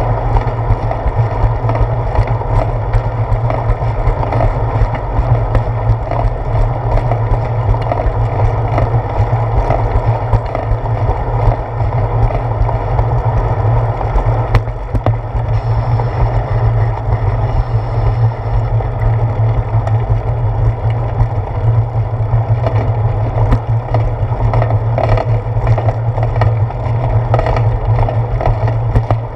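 Steady, loud rumble of a bicycle rolling over a concrete path, mostly tyre and frame vibration with wind noise, heard through a handlebar-mounted GoPro.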